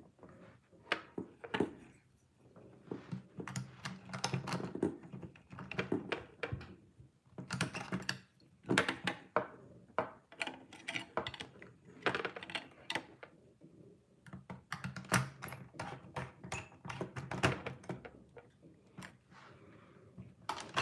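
Irregular small clicks, taps and scrapes of a screwdriver and wires being handled against plastic electrical fittings as a wire is fastened into a terminal.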